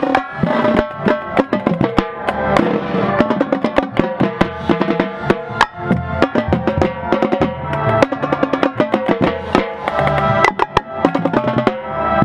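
Marching band playing a tune over its drumline, with many sharp drum strokes throughout.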